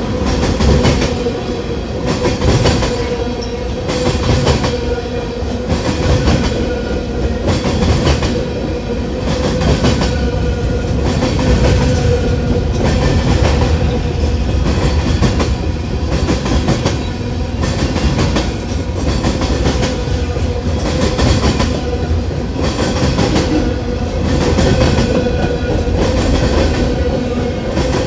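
Freight train cars rolling past at close range, the wheels clacking over rail joints in a regular rhythm about once a second, with a steady ringing tone from the wheels running under it.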